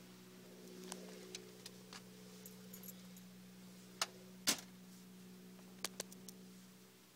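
1988 Toyota MR2 supercharged engine idling steadily, heard through its mufflerless SRT4 exhaust. Over it come a scatter of light clicks and rattles and two loud knocks about four seconds in.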